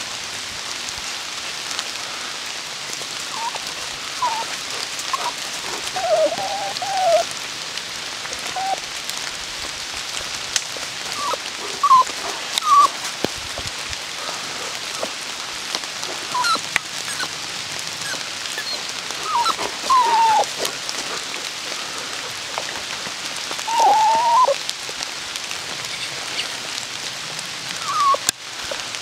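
Steady rain hissing on the forest's leaves, with short, high, bending calls every few seconds.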